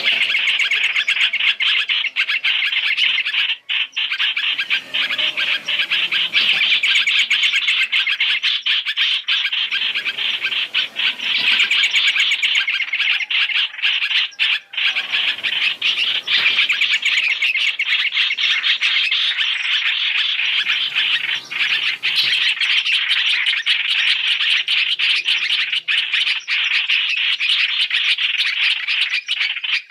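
Streak-eared bulbuls (hoành hoạch) calling in a dense, continuous chatter of rapid chirps, layered as a bird-trapping lure recording.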